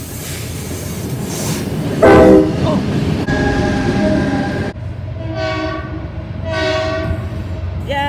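Diesel locomotive horn sounding four blasts as the locomotive passes: a very loud short blast about two seconds in, a longer held chord just after, then two more blasts near the end. The locomotive's engine rumbles steadily underneath.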